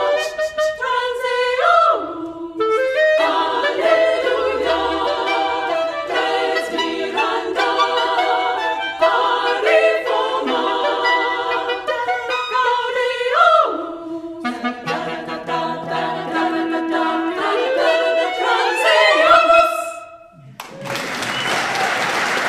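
Women's choir singing with a solo clarinet, the clarinet playing a rising run that closes the piece. After a brief pause, audience applause starts near the end.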